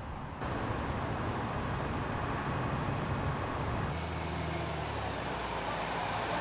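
Fire engine's diesel engine idling, over a steady hiss of street and traffic noise. A steady low engine hum comes in close about two-thirds of the way through.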